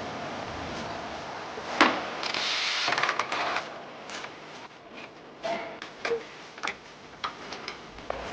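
Hand tools and metal suspension parts clinking and knocking during ball joint removal, with one sharp knock about two seconds in and a brief hissing noise just after it.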